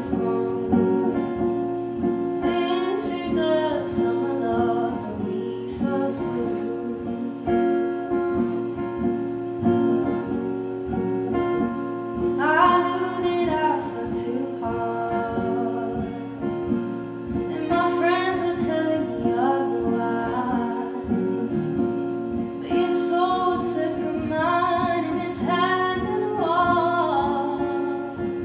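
Female singer-songwriter singing, accompanying herself on acoustic guitar. Sung phrases come and go, with stretches of a few seconds where the guitar plays on its own.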